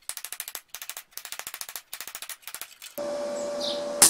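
Hammer beating a crescent of 3 mm steel plate held in a vice, in fast light blows about eight a second, shaping it into the flared cone of a railway-wheel flange. About three seconds in the blows stop and a steady hum with one held tone takes over.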